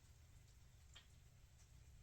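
Near silence: room tone with a faint low hum and a soft click about halfway through.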